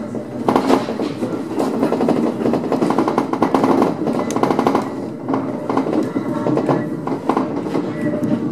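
Wheels of a three-car electric multiple unit clattering over pointwork and rail joints at low speed, heard from on board. Repeated runs of rapid clicks sound over a steady running rumble.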